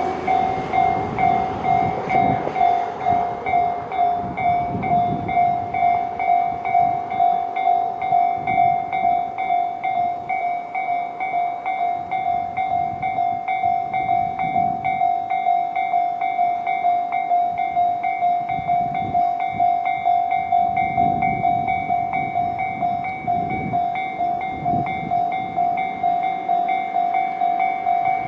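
Japanese level-crossing electronic alarm bells of the Tobu 'C' tone, both sides sounding, ringing steadily at about two rings a second. The noise of a passing train dies away in the first couple of seconds.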